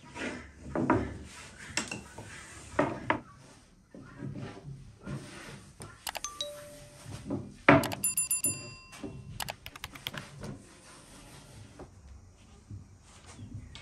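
Thin wooden rolling pin knocking and rolling on a wooden board as baklava dough is rolled out, with a few dull thunks in the first few seconds. About eight seconds in comes a quick run of clicks with a short bell-like ding, typical of an on-screen subscribe-button animation sound effect.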